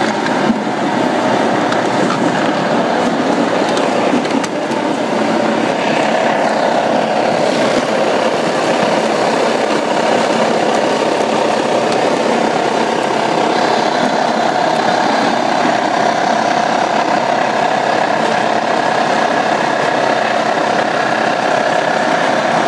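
Cider-pressing machinery running steadily, a loud continuous mechanical noise.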